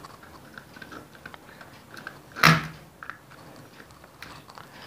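Small scattered clicks and taps of a screwdriver and stripped wire on the terminal screws of switches on an extension board as the wire is fitted and tightened, with one louder sharp knock about halfway through.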